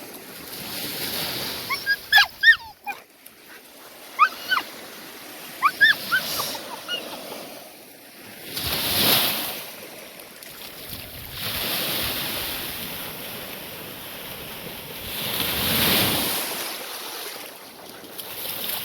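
Australian shepherd whining in short, high yelps: a cluster about two seconds in and more around four and six seconds. Ocean surf washes underneath, with waves swelling about nine and sixteen seconds in.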